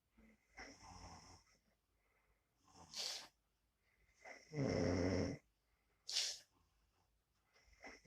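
Snoring: a soft breath about half a second in, then two loud, pitched, rattling snores about a second long and some three seconds apart, each a little after a short sharp hissing breath.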